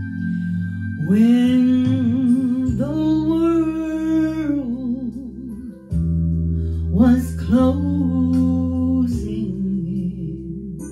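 A woman singing slow, long-held notes with vibrato over recorded backing music, in two phrases with a short break between them.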